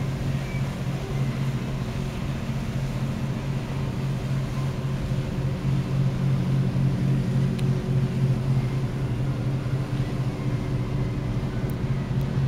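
Boat diesel engines droning steadily in a low, even hum, with a faint wash of water and wind over it.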